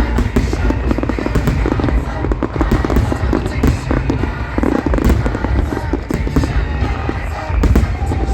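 Fireworks shells bursting and crackling in quick succession over loud music played for the show.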